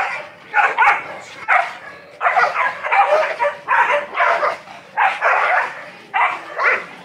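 Dogs play-fighting, giving short barks and yelps in quick succession, about two a second.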